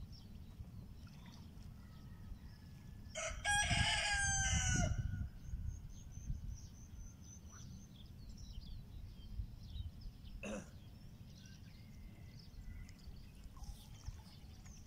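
A rooster crowing once, about three seconds in, a pitched call lasting nearly two seconds that drops slightly at its end. A single sharp click comes about ten seconds in.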